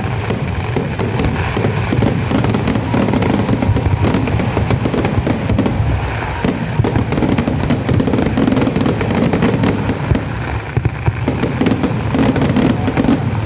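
Dense barrage of firecracker explosions from a Kerala temple fireworks display (vedikettu). The bangs come too fast to count and merge into one continuous rattle and boom without a break.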